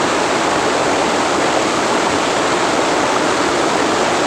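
Small waterfall on a forest river, its water rushing loud and steady, an even noise that covers everything else.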